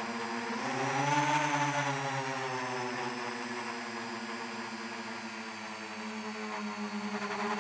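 Motors and propellers of a 7-inch FPV quadcopter in flight, heard from the drone's own camera: a steady buzzing whine. Its pitch rises about a second in as the throttle comes up, eases down over the next few seconds, and climbs again near the end.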